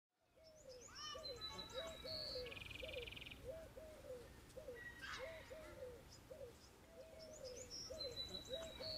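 Faint birdsong: a short low call repeated over and over, with a higher song phrase ending in a buzzy trill about a second in and again near the end.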